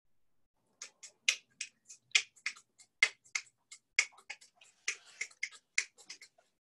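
A quick, irregular run of sharp clicks and taps, several a second.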